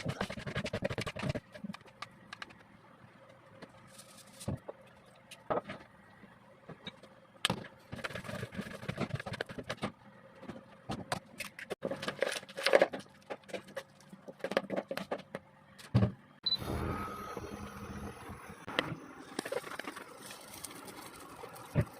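Kitchen preparation sounds: scattered clinks, taps and quick rattling runs of utensils, a sharp knock about three-quarters of the way through, then a steady hiss to the end.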